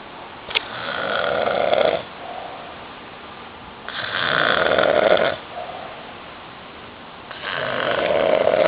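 A man snoring loudly: three long snores about three and a half seconds apart, each building up and then cutting off sharply, with quieter breathing between them.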